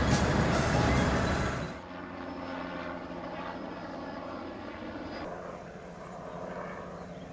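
Loud engine noise that drops suddenly about two seconds in to a quieter, steady engine drone.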